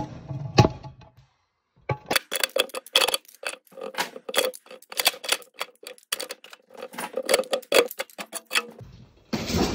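Pliers, locking pliers and other steel hand tools clinking and clattering against each other and the metal drawer as they are picked out by hand, a quick run of sharp clanks. A short rushing noise comes near the end.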